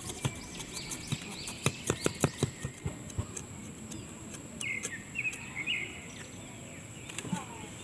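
A run of sharp clicks and snaps between about one and a half and three seconds in, while a small fire is being lit. Small birds chirp in short bursts near the start and again around the middle, over a steady high whine.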